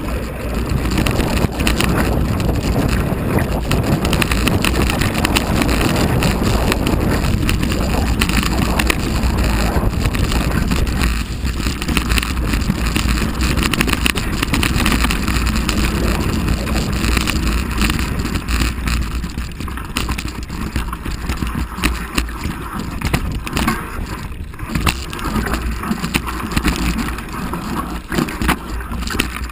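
Mountain bike riding fast down a rough dirt forest trail: a continuous clatter and rattle of the bike over roots and stones, with tyre noise and low wind buffeting the microphone.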